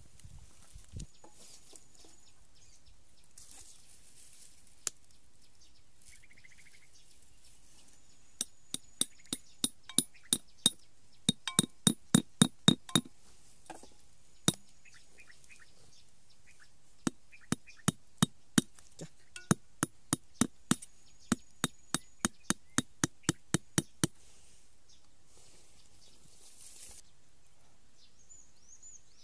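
Knife blade tapping thin metal wire pins into the dirt: two runs of sharp metallic clinks, about three taps a second, with a few single taps between.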